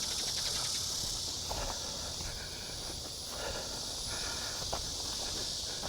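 Outdoor ambience: a steady high hiss over a low rumble, with a few faint knocks.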